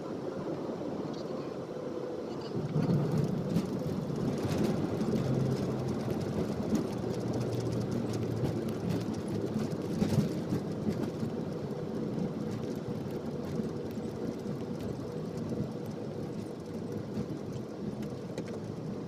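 Jet airliner cabin noise on the runway during the landing roll: steady engine and rolling rumble that grows louder about two and a half seconds in, with a sharp knock about ten seconds in, then slowly eases off.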